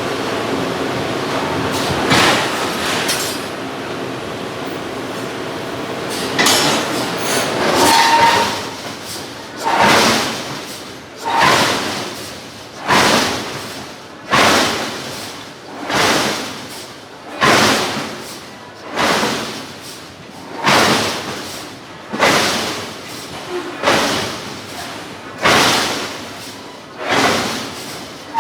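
Giant hydraulic forging hammer striking hot steel. After a few seconds of steady machine noise it settles into a regular beat of heavy blows, about one every second and a half, each ringing briefly.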